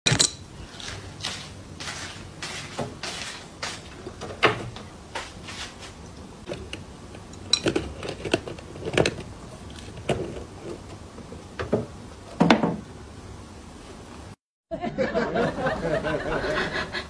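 Metal adjustable wrench clinking and knocking in irregular strikes, about a dozen over twelve seconds.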